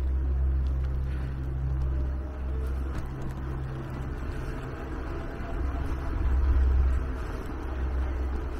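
Low, unsteady rumble of wind and road noise on the camera's microphone while riding an electric bicycle up a steep paved road, swelling briefly about six seconds in.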